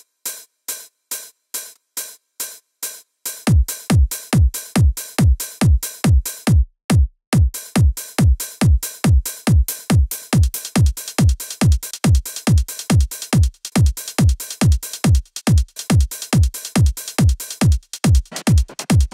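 Electronic trance percussion loop playing back at 140 BPM. For about the first three seconds only hi-hats and percussion hits are heard. Then a four-on-the-floor kick drum comes in under them, each kick a low thud that falls in pitch.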